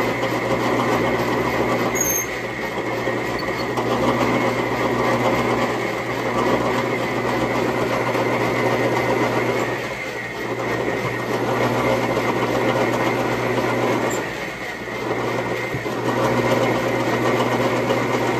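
Metal lathe running while a twist drill in the tailstock chuck bores into the end of a spinning steel bar, drilling a tap hole for a 5/16-18 thread: a steady motor hum under a rough cutting noise. The cutting noise dips twice, about ten and fourteen seconds in, as the drill is backed out of the hole.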